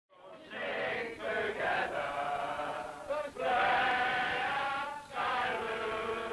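Football crowd singing together in unison, long held notes in slow phrases with short breaks between them, starting abruptly out of silence.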